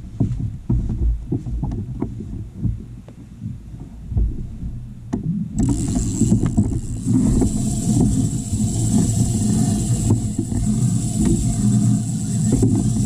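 Knocks, bumps and low rumbling from someone shifting about and handling gear in a fishing kayak. About halfway in, a steady high hiss starts suddenly and keeps going.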